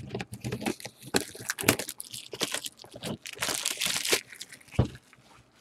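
Cellophane shrink wrap being torn and crumpled off a trading-card box, a dense crinkling crackle for about four seconds, followed by a single knock near the end.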